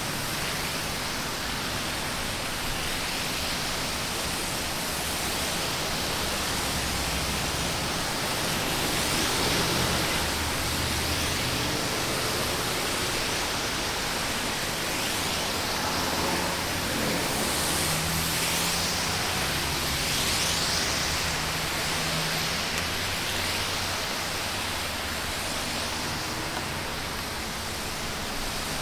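Steady hiss of highway traffic on a wet road: tyres spraying and swishing on wet asphalt, with a low engine hum underneath and gentle swells as vehicles pass.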